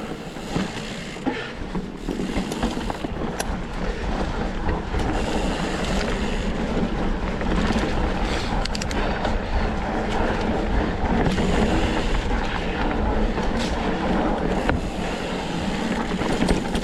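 Canfield Nimble 9 hardtail mountain bike riding a dirt trail: steady tyre roar with scattered clicks and knocks of the bike chattering over the ground, and a low wind rumble on the microphone.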